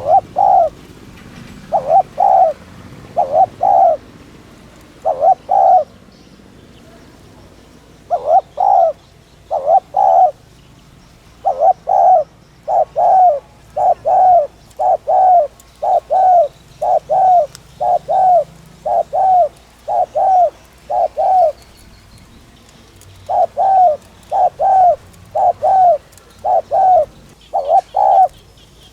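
Spotted dove cooing in quick, insistent runs of short, arched coos, the urgent 'thúc' style of call, broken by brief pauses every few seconds.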